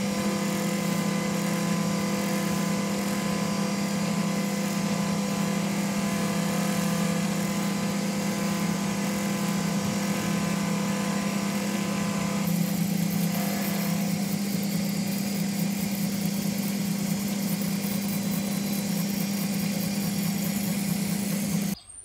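Small engineer's lathe running steadily with a strong motor hum while its tool cuts a cam profile into a brass disc, the follower pin tracing a pattern. The sound stops abruptly near the end.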